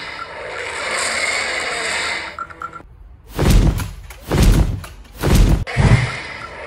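Dinosaur sound effects: a T. rex roar lasting nearly three seconds, then four deep, heavy thuds of giant footsteps, about a second apart.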